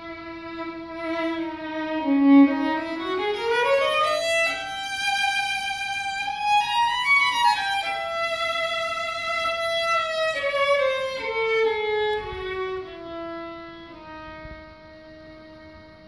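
String quartet playing: a bowed violin line holds a low note, climbs in steps to a high note around the middle, then steps back down to the low note and holds it, growing quieter toward the end.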